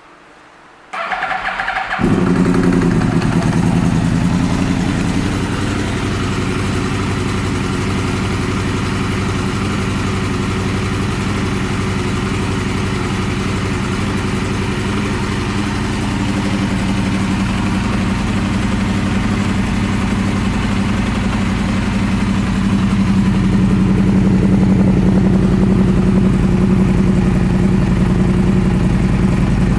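2013 Yamaha YZF-R1's crossplane inline-four being started: the electric starter cranks for about a second, the engine catches about two seconds in and settles into a steady idle through its Two Brothers Black Series twin exhaust, a little louder in the last few seconds.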